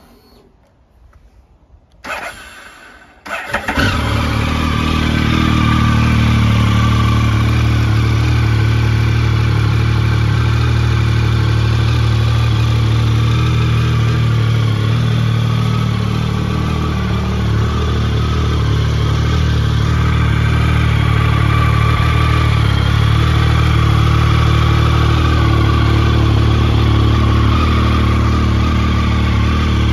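Triumph Tiger 1050 Sport's 1050 cc inline three-cylinder engine being started. The starter cranks briefly about two seconds in, the engine catches about three and a half seconds in, and it then idles steadily.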